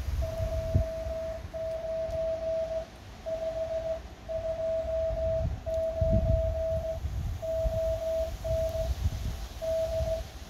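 Morse code (CW) from a portable shortwave transceiver: a single steady mid-pitched tone keyed on and off in an uneven run of dots and dashes. A low rumble sits underneath.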